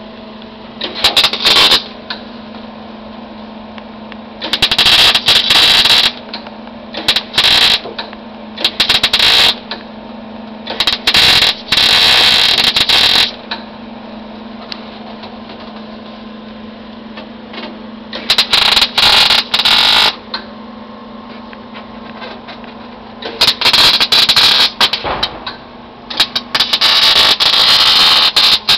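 Electric welder crackling in a series of short bursts of one to two seconds each, as new steel floor pans are welded into a car body, with a steady hum underneath.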